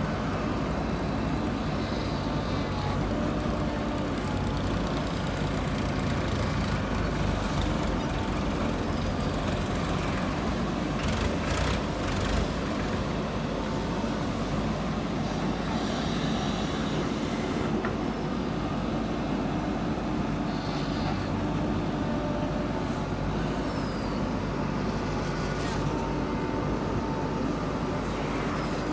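Diesel engine of a JCB 3DX backhoe loader running steadily under load while it digs and loads mud, with a few clanks about eleven to twelve seconds in.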